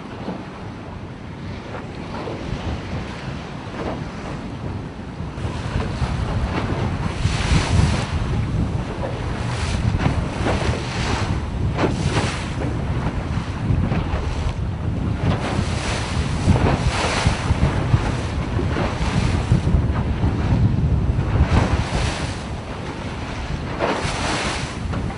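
Wind buffeting the microphone over open-sea waves, with repeated splashes that grow louder after about five seconds.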